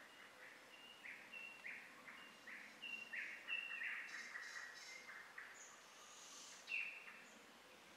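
Small birds chirping faintly: a run of short falling notes, repeated, with one sharper call near the end.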